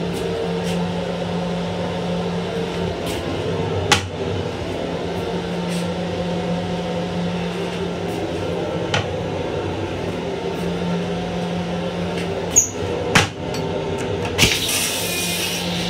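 Steady hum of an LIRR M7 electric railcar's equipment in its small restroom, with a few sharp clicks and rattles. About a second and a half before the end, a loud hiss starts.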